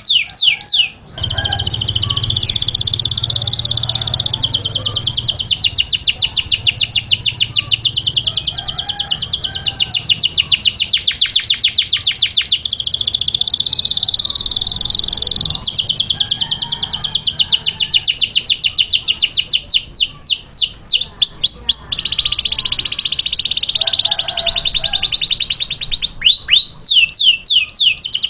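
Domestic canary singing a long, loud song made of fast trills, each a rapid run of the same note repeated many times a second, switching to a new trill about a second in, near the three-quarter mark and again near the end.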